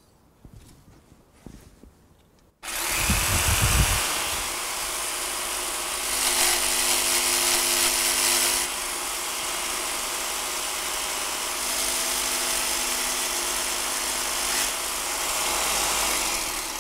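Electric power tool switched on about two and a half seconds in, running steadily while it cuts the slot for a lure's diving lip into a wooden strip fed through an angled jig; its tone shifts a few times as the wood is pushed through. Before it starts, a few light knocks as the strip is set in the jig.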